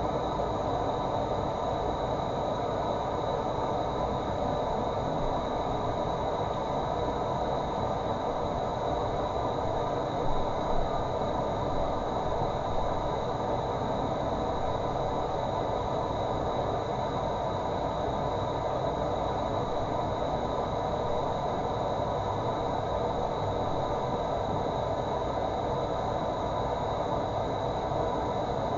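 Running water making a steady, even rushing sound, with a few slightly louder splashes about ten seconds in.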